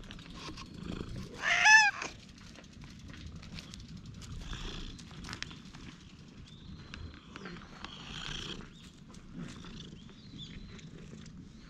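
A domestic cat gives one short meow with a wavering pitch about one and a half seconds in, the loudest sound here. After it come fainter rustling noises and a few thin, high chirps.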